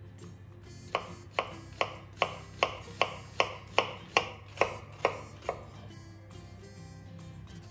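Kitchen knife slicing through an onion half and knocking on a bamboo cutting board: about a dozen even cuts, two or three a second, stopping about five and a half seconds in, over steady background music.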